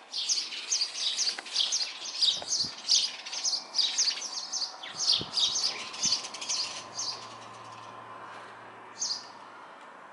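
Small birds chirping: a fast, busy run of short high chirps for about seven seconds, then a lone chirp near the end.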